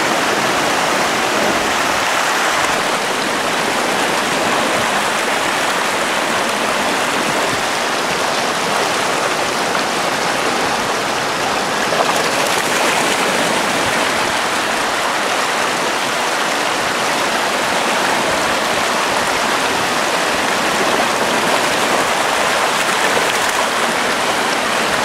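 Shallow stream water rushing and splashing over rocks: a steady noise of running water.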